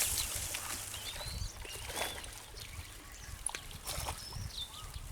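Water trickling and splashing faintly, with a few short high chirps and small clicks scattered through.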